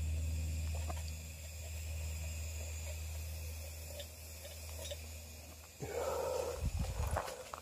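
Antique brass gasoline blowtorch's small priming flame burning at the burner with a steady low rumble, the gasoline burning off. About six seconds in, a brief louder scuffing noise with a few thumps.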